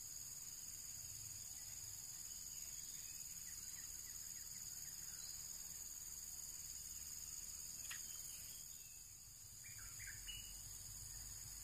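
Steady high-pitched chorus of insects over a low background rumble, with a faint click about eight seconds in and a few short bird chirps near the end.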